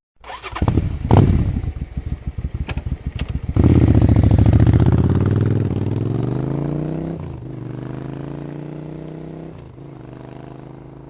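A motor engine starting: rapid uneven pulses of cranking and sputtering, then it catches about three and a half seconds in. It revs up loudly, then falls back and settles into a steady idle that slowly fades.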